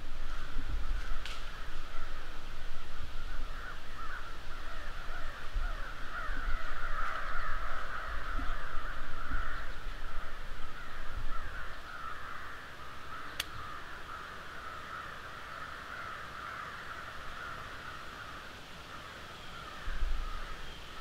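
Crows cawing repeatedly, many calls running together, fading somewhat after the first dozen seconds. Low thumps come and go underneath, with a single sharp click about thirteen seconds in.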